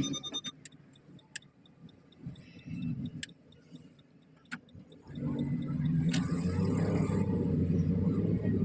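A few light clicks, then about five seconds in a Nissan Dayz's engine comes on and runs steadily.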